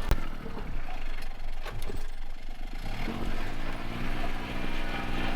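A vehicle engine running: a knock right at the start, then from about three seconds in a steady engine tone that rises slightly and holds.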